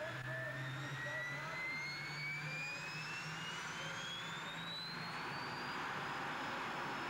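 Pulling tractor's engine winding up: a high whine rises steadily for about five seconds and then holds, with a rushing roar building beneath it near the end.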